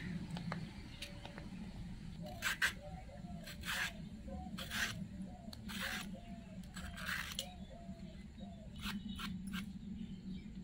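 Knife blade scraping the ridged skin off a sponge gourd (nenua), in a series of short scraping strokes, about eight of them.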